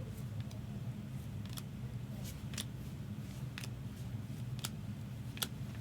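Trading cards being handled, giving several soft, separate clicks and ticks at uneven intervals over a steady low hum.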